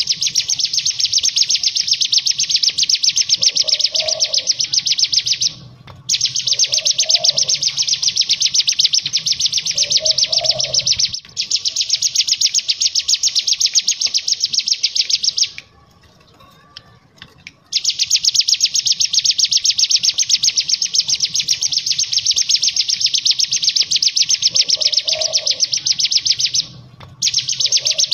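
Hill prinia (ciblek gunung) singing its rapid 'ngebren' song, a fast, high, buzzing trill held in long phrases of about five seconds with short breaks and one longer pause midway. A few short, lower calls come in under it now and then.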